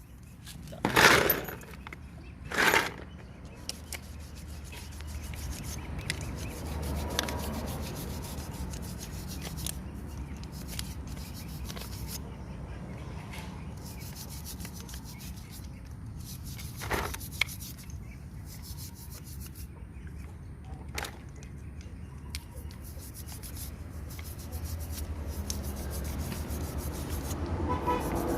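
Steady rubbing and scraping of hand work on a part, over a low hum. There are two short, loud scrapes about one and nearly three seconds in, and another about two-thirds of the way through.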